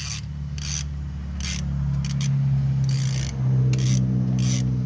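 Ratchet wrench being worked back and forth on the alternator belt tensioner adjuster, tightening the belt. It gives a short rasping click about twice a second over a steady low hum.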